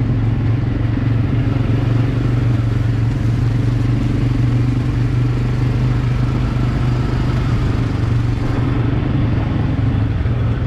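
ATV (quad bike) engines running steadily at low riding speed, a constant low hum without revving.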